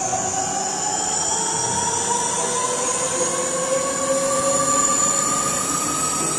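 Electric-motor whine, several high tones climbing slowly and steadily in pitch together over a steady rushing noise, with a slight swell about five seconds in.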